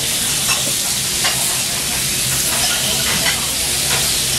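Slices of Kobe beef sizzling steadily on a hot steel teppanyaki griddle, with a few short scrapes and taps of a metal spatula against the plate as the meat is pushed about.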